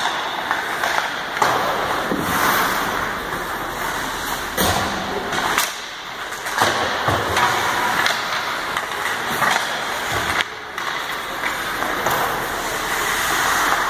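Ice hockey in play: skate blades scraping the ice over a steady rink hiss, with sharp knocks and thuds of sticks and puck every second or two.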